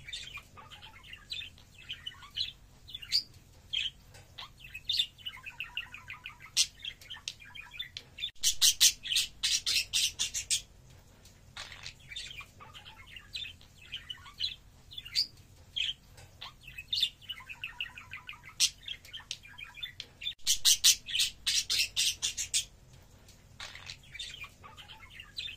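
Budgerigar warbling and chirping: a steady run of short, varied chirps and twitters, broken twice by a loud burst of rapid, repeated chattering calls, about a third of the way in and again later on.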